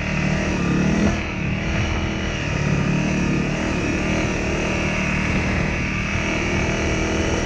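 Honda CRF250L's single-cylinder engine running while riding on a gravel road, its pitch rising and falling a little with the throttle. A steady rushing hiss of wind and tyres on gravel runs underneath.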